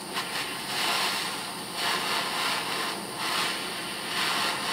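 Propane torch flame hissing steadily while it heats a battery-cable lug to keep the solder in it molten. The hiss swells louder four times.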